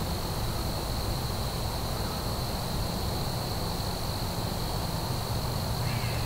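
Crickets trilling in one steady high note, over a steady low hum and hiss.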